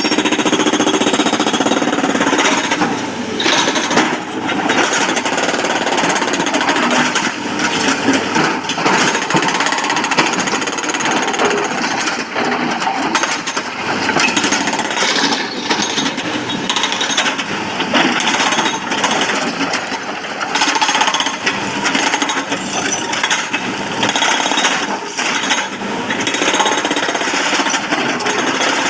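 Excavator-mounted hydraulic rock breaker hammering stone, in continuous rapid blows.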